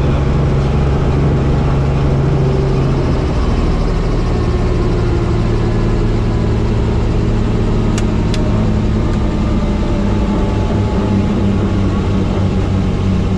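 Helicopter turbine engine and rotor running, a loud steady low drone. One of its low tones shifts slightly about three and a half seconds in.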